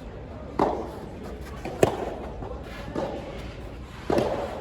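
Rubber soft tennis ball in a rally, struck by rackets and bouncing on the court: four sharp pops, roughly a second apart.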